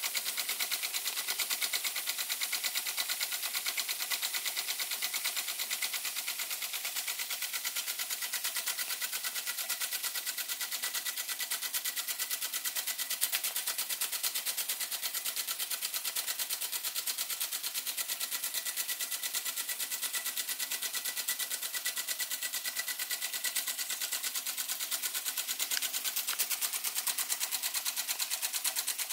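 Weeden No. 14 toy steam engine running steadily at speed, making a rapid, even ticking clatter.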